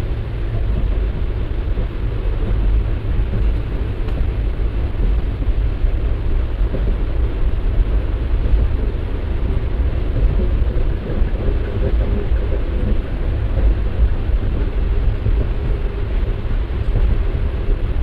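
Diesel-hauled passenger train running, heard from inside a coach at an open window: a steady rumble of wheels on rails with wind noise.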